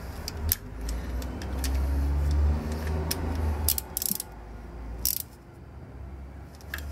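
Ratchet with a universal-joint socket working the water pump mounting bolts: a few scattered sharp metallic clicks and clinks of the tool, over a low steady rumble that swells in the middle.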